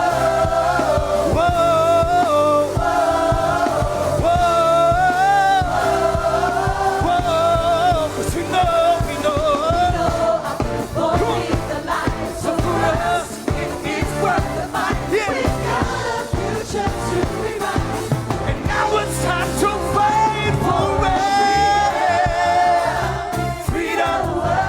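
Live reggae gospel band playing over a steady beat, with a vocal group singing a wordless melodic refrain.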